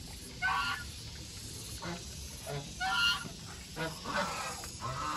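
Domestic geese honking. Two loud honks come about half a second and three seconds in, with fainter calls between.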